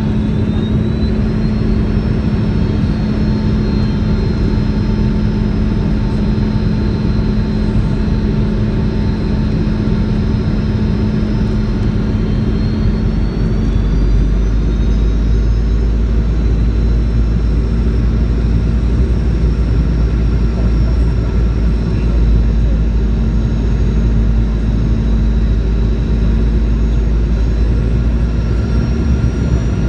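In-flight cabin noise of a Boeing 717-200: the steady roar and drone of its rear-mounted Rolls-Royce BR715 turbofans and airflow. A thin high engine whine rises in pitch about a second in and again around halfway, and the low rumble grows slightly louder at the same point.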